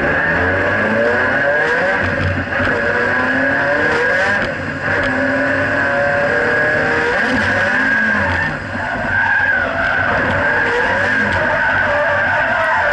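Nissan 180SX's turbocharged SR20DET four-cylinder engine revving up and down through a drift, heard from inside the cabin, with a steady high tyre squeal. The sound dips briefly three times.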